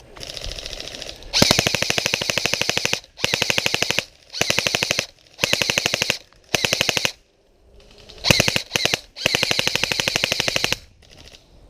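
Airsoft electric rifle firing rapid full-auto bursts, several in a row. There are two longer strings of about one and a half seconds, near the start and near the end, with shorter bursts between and a brief pause in the middle.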